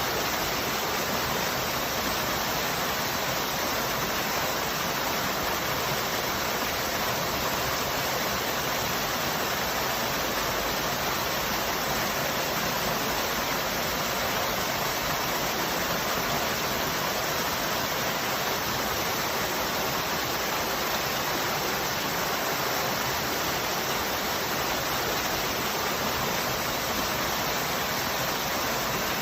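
Waterfall: water falling and rushing in a steady, unbroken roar with no changes in level.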